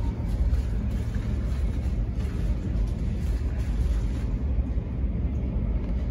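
Steady low rumble of a taxiing Boeing 777-300's jet engines, heard through terminal window glass.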